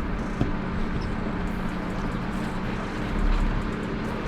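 4WD vehicle's engine running steadily at low speed while crawling down a rough, rocky track, with a heavier low rumble a little after three seconds in.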